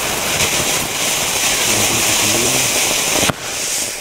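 Firework ground fountain spraying sparks with a loud, steady hiss, which stops abruptly with a short crack about three seconds in as the fountain burns out.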